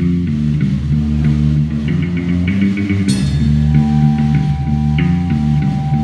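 Live rock band playing an instrumental passage: electric guitar and bass guitar chords over a drum kit, with a cymbal crash about halfway through and a high held note coming in just after.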